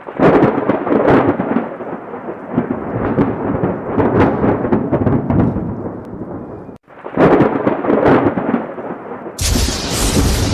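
Thunder sound effect under a logo intro: a long rolling rumble that cuts out abruptly for an instant about seven seconds in and then rolls again. Near the end a harsher, hissing crash takes over.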